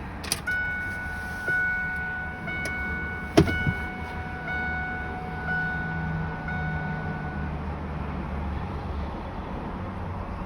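Dashboard warning chime in a Ford 7.3 Power Stroke diesel pickup, a bell-like ding repeating about once a second for some seven seconds, with the ignition on and the engine not yet started. A sharp click comes about three and a half seconds in.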